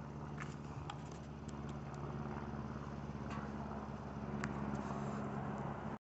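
Steady low hum of an idling engine, with a few faint ticks; the sound cuts off suddenly at the end.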